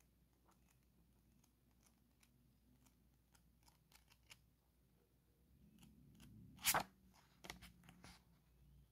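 Paperback book pages being flipped through by hand, faint paper ticks as pages fall. In the last third come a few louder paper rustles and sharp snaps, the loudest about two-thirds of the way through.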